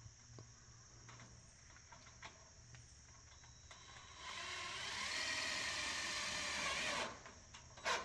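Power drill driving a screw into the stand's sheet-metal panelling: a motor whine that runs for about three seconds and stops abruptly, followed by a sharp knock near the end. Crickets chirr steadily underneath.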